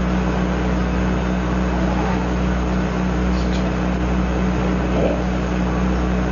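Steady low hum with an even hiss over it: constant background noise on the recording.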